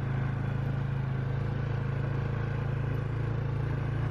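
ATV (four-wheeler) engine running at a steady speed as the quad rides up a dirt trail, a low, even drone.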